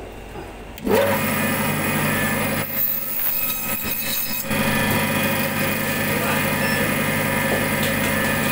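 Electric meat band saw starts up about a second in and runs with a steady hum as a slab of pork ribs is fed through it, cutting through the bone.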